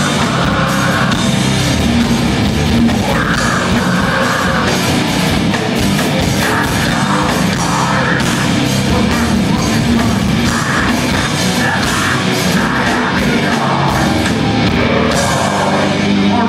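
Live heavy rock band playing loud, with electric guitars and a drum kit, and a vocalist singing and shouting over them.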